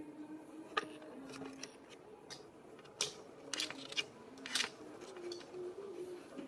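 Close handling noise as a cat brushes against the camera and is stroked: several sharp clicks and rustles, the strongest about a second in and a cluster around three to five seconds, over a faint low hum.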